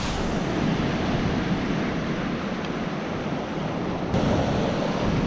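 Sea waves washing on the beach, a steady rushing noise, with some wind on the microphone.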